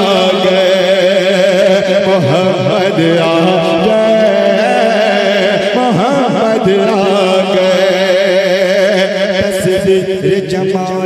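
A man singing a devotional Urdu kalam (naat) into a microphone, drawing out long notes in a wavering, ornamented melody.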